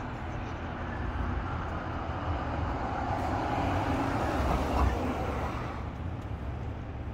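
Street traffic: a steady low rumble, with one vehicle's noise swelling to a peak about four to five seconds in and then fading as it passes.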